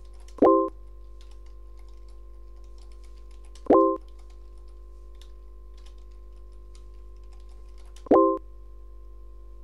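Computer keyboard typing with light clicks, broken three times by a short loud electronic chime of a few steady tones. Each chime falls as a chat message is sent: once about half a second in, once near four seconds and once about eight seconds in.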